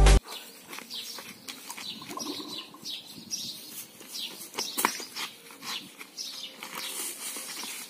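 Birds chirping over and over, with a single sharp knock about five seconds in.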